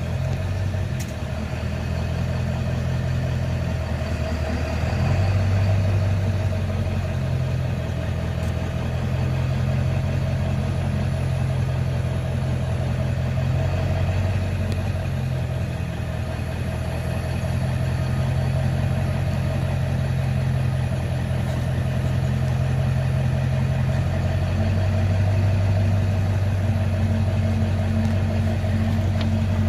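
Vehicle engine running steadily at low road speed, a low drone whose pitch shifts up and down a few times.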